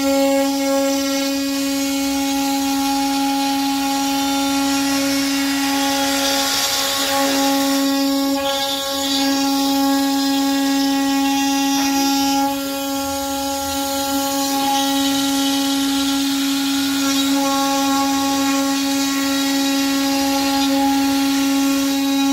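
CNC router spindle running with a steady high whine while its end mill routes a curved groove in a wooden board, the cutting noise hissing along under it. The sound drops a little in loudness about halfway through.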